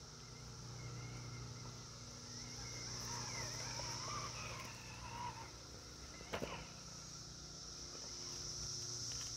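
Steady high-pitched insect chorus, with a bird warbling briefly in the middle and a short clatter a little past six seconds in.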